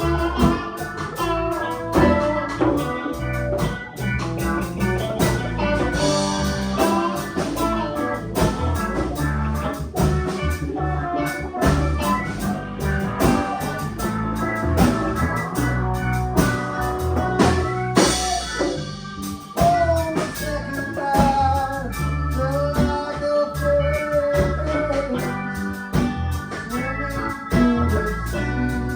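A live band playing a song with guitar, drum kit and keyboard.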